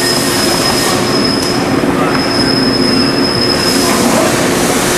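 Metal lathe and shop machinery running: a loud, steady mechanical noise with a thin high whine over it that drops out briefly about two seconds in.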